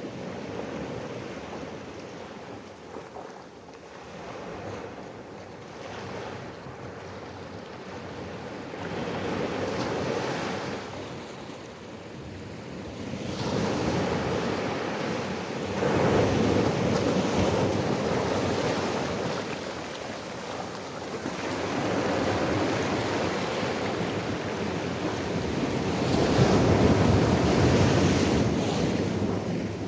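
Ocean surf: waves breaking and washing in, a rushing noise that swells and falls every few seconds, louder in the second half.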